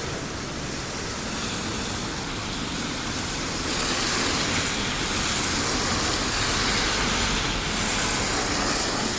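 Steady hiss of heavy rain, growing louder about four seconds in.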